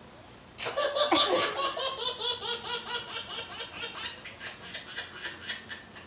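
A woman's sneeze about half a second in, then a baby laughing hard in rapid bursts, about four or five a second, slowly fading.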